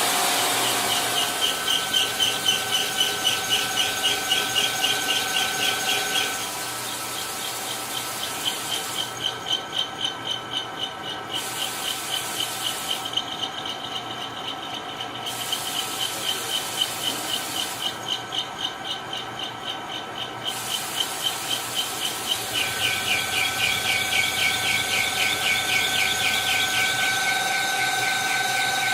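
Cutting tools on CNC machines squealing in metal: a high-pitched whine that pulses about three times a second, changing abruptly several times.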